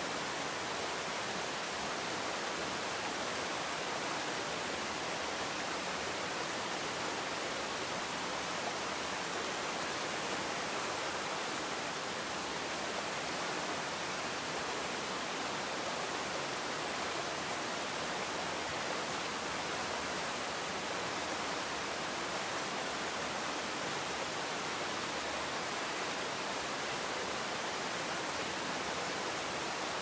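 Waterfall pouring down a rock face into a plunge pool: a steady, unbroken rush of falling water, more hiss than rumble.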